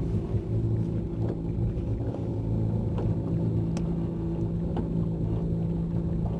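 Motorboat engine running at slow speed, a steady low drone, with a few light ticks over it.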